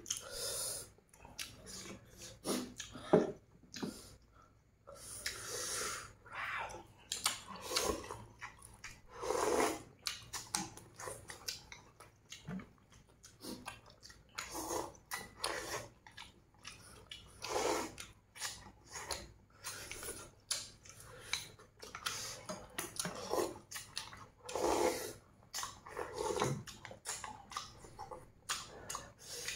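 Two people eating close to the microphone: irregular chewing and slurping of noodles, in short bursts, with bowls of broth sipped near the end.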